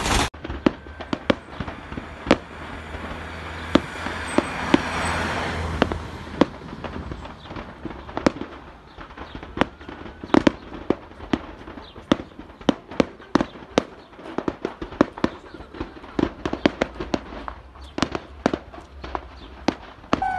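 Stored fireworks going off in a burning fireworks factory: an irregular string of sharp bangs and pops, coming thicker and faster in the second half, over a steady hiss during the first few seconds.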